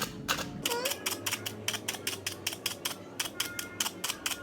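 Aluminium foil stretched over a shisha bowl being pierced again and again with a pointed tool: a rapid run of sharp ticks, several a second, as the small air holes are punched.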